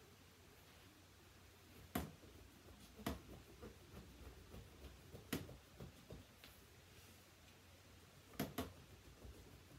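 Near-quiet room with a crayon scraping and tapping on a pumpkin's rind as it is coloured in. There are a few sharp clicks, single ones about two, three and five seconds in and two close together near the end.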